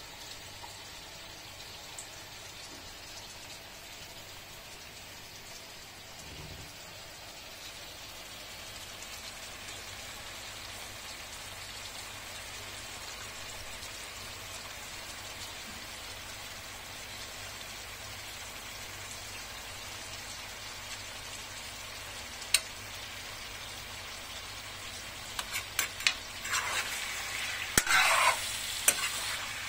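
Chicken frying in a sac pan, a thin sheet-iron pan, with a steady sizzle that grows slightly louder. Near the end a utensil clicks and scrapes against the pan as the food is stirred.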